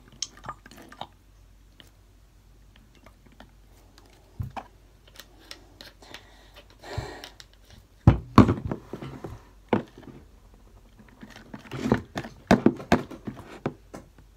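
Handling noises from squeezing a plastic Elmer's glue bottle over a plastic tub and working the sticky slime by hand: scattered small clicks and knocks, with louder clusters about eight seconds in and again around twelve to thirteen seconds.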